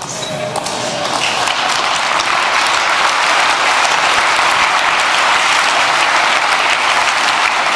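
A large audience applauding, the clapping swelling over the first second or so and then holding steady.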